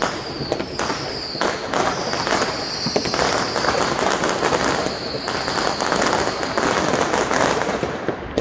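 Many New Year's fireworks going off at once, a dense run of sharp bangs and crackles. A high whistling tone sliding slightly downward sounds over them, briefly several times and then for a few seconds on end.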